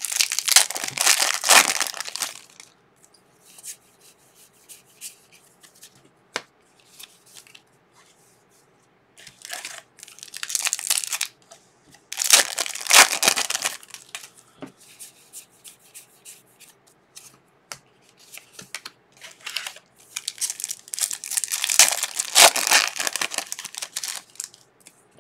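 Foil trading card packs being torn open and crinkled by hand, in bursts: one at the start, two around ten and thirteen seconds in, and a longer one from about twenty seconds in, with light crinkles between.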